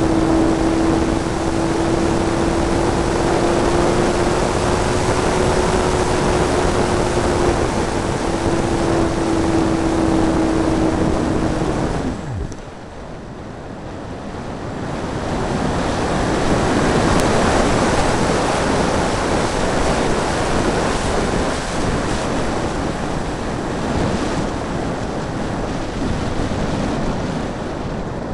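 Electric motor of a hotliner model plane running with a steady whine over the rush of airflow on the onboard microphone. About twelve seconds in, the motor is cut and its pitch drops away, leaving only air rush, which swells again a few seconds later.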